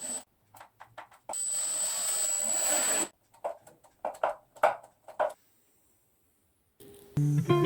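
A small power tool runs for about a second and a half with a high whine, followed by a few short knocks on wood. Guitar music starts near the end.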